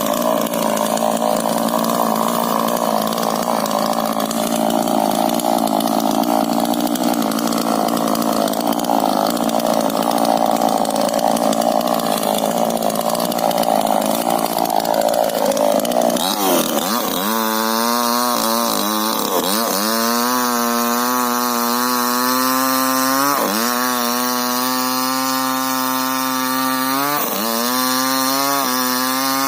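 Two-stroke chainsaw cutting rubber tree wood under load. A little past halfway the note turns clear and steady at high revs, dropping briefly and picking back up several times.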